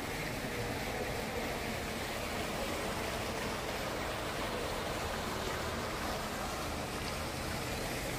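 Steady splashing of a tiered pool fountain and water features falling into a swimming pool.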